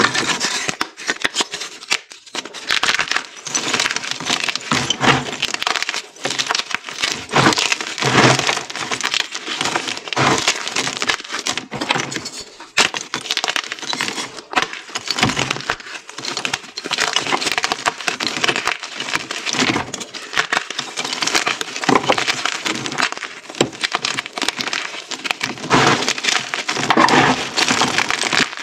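Hard, reformed gym chalk dyed pink being crushed and crumbled in bare hands: a continuous, irregular crunching and crackling made of many small snaps.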